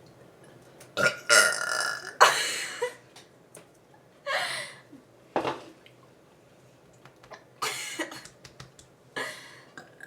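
A series of about seven short, forced burps from a person deliberately trying to burp after drinking orange soda, the loudest few coming about a second in.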